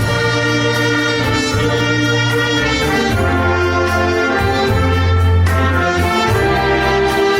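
Wind orchestra playing an arrangement of a Korean popular song, brass carrying a sustained melody over a steady low bass line.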